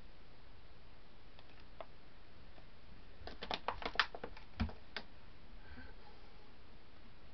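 Plastic water bottle and paint cup being handled: a quick run of light clicks and taps about three seconds in, with one dull knock, then only quiet room hiss.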